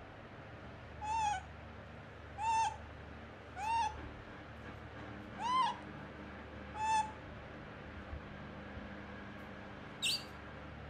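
Baby macaque giving five short, arched coo calls about a second and a half apart, then one brief higher squeak near the end.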